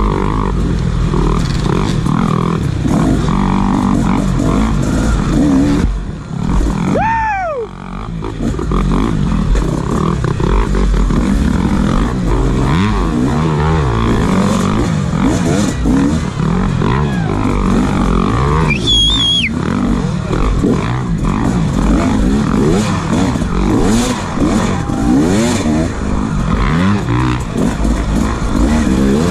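Dirt bike engine revving up and down under race throttle, heard from the bike being ridden. The revs fall away about seven seconds in, then climb again.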